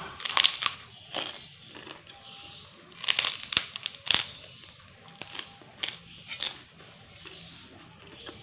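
Crunching bites into a large white kerupuk, the puffy Indonesian cracker, as it is chewed: clusters of sharp, crackly crunches, the loudest about three to four seconds in, with a few single crunches after.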